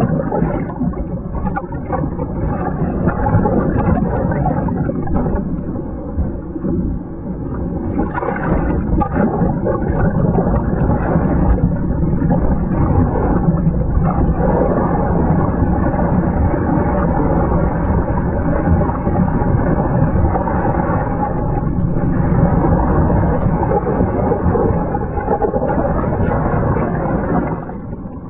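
Water splashing and rushing over a wet camera at the water's surface: a continuous, muffled sloshing and rumbling, easing briefly a few seconds in.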